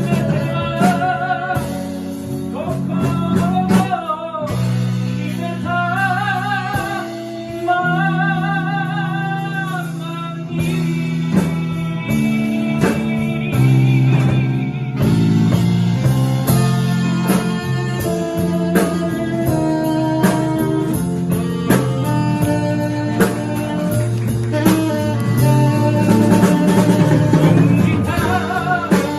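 Live band playing a slow ballad: tenor saxophone, keyboard, electric bass and drum kit, with sustained chords and a melody line held with vibrato in the first several seconds.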